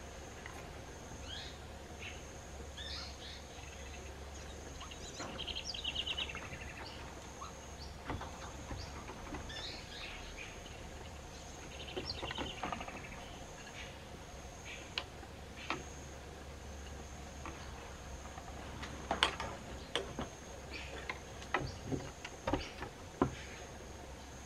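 Tropical outdoor ambience: a steady high-pitched insect drone, with quick chirping trills twice, and a run of sharp clicks and knocks in the last few seconds.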